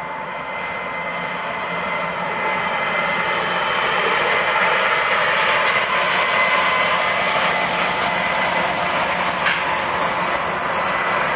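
HO scale model trains running on the layout: a steady mechanical whir and engine-like drone with a few held tones, growing louder over the first few seconds and then holding level.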